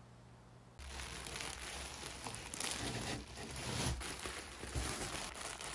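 Plastic wrapping on a packaged duvet crinkling and rustling as it is handled in a cardboard box, starting about a second in.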